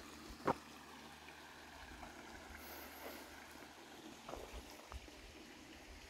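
A hiker's footsteps on a dirt and rock trail: one sharp step about half a second in and a few softer ones later, over a faint, steady rush that fits a small creek flowing nearby.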